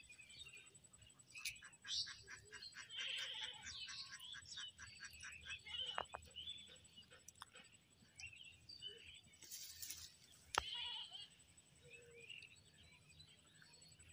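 Faint animal calls, including a trembling call of rapid even pulses lasting about three seconds near the start, with scattered chirps later and a single sharp click about ten and a half seconds in.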